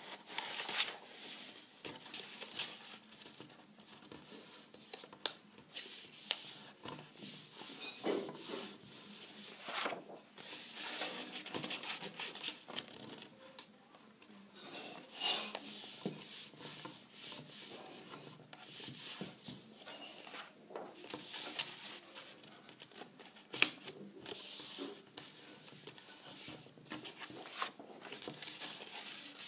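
A sheet of thin pink cardboard being handled and folded by hand on a tabletop: irregular rustling, rubbing and scraping as the card is rolled, flattened and its creases pressed down, with a couple of sharp taps.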